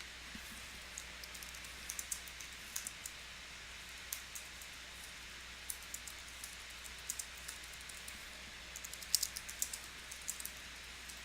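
Light ticks and crackles of Topps Chrome trading cards and their foil pack wrappers being handled, in irregular clusters, over a steady hiss.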